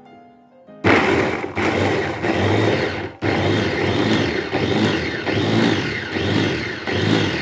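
SK electric mini food chopper running, its blades grinding chilies, shallots, garlic and ginger into a spice paste. The motor starts about a second in, cuts out for a moment about three seconds in, then runs on until it stops near the end.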